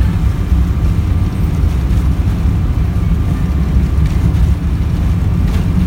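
Airliner taking off: a steady, loud low rumble of jet engines and rushing air, with a faint steady whine above it.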